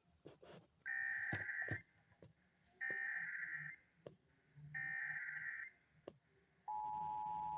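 Emergency Alert System S.A.M.E. header: three identical bursts of buzzing digital data tones, about a second each and evenly spaced, encoding a tornado warning. A few faint clicks fall between them. Near the end a steady, unbroken EAS attention tone starts.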